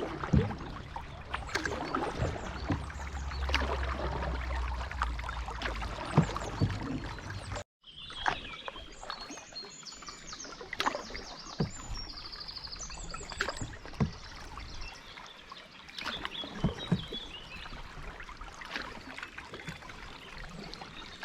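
Canoe paddling: paddle strokes splash in the water and now and then knock against the canoe, with a low rumble of wind or handling in the first part. After a short break, birds chirp high above the quieter paddling.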